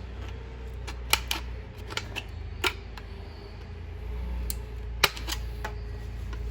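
Sharp clicks, about six of them and loudest just after a second in and about five seconds in, typical of suspended-ceiling grid tees being snapped into the main runners, over a steady low hum.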